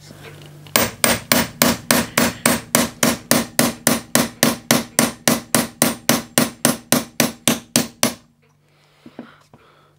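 Hammer tapping a pin punch to drive out the barrel retaining pin of an Umarex Legends Cowboy Rifle (a CO2 replica of the Winchester Model 1894): an even run of taps, about four a second, that stops about eight seconds in. The pin is coming out.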